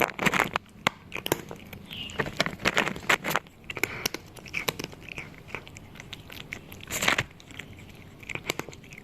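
A cat crunching a hard snack: clusters of crisp bites and chewing with short pauses between, the loudest crunch about seven seconds in.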